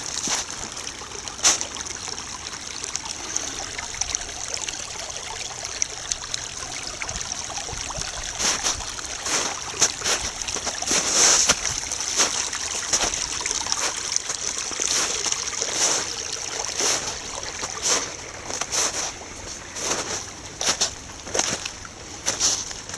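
Shallow spring snow-melt stream trickling and babbling steadily, with frequent short, sharp clicks and splashy ticks on top.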